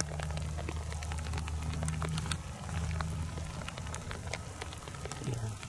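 Light drizzle: scattered raindrops ticking sharply and irregularly on gear close to the microphone, over a faint hiss and a low steady hum.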